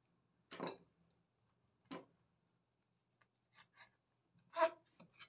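Cleaver cutting through a block of chilled radish cake on a wooden cutting board: four short, spaced-out knocks as the blade comes down to the board, the loudest with a slight ring near the end, plus a couple of faint ticks.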